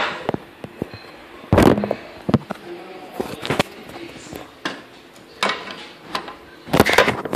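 Handling noise on a phone's microphone: scattered knocks, bumps and rubbing as the phone is picked up, moved about and set in place, with a cluster of knocks near the end.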